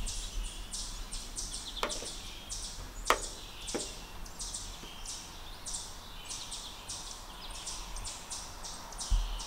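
Outdoor ambience with high-pitched chirping that repeats two or three times a second, and a few faint clicks.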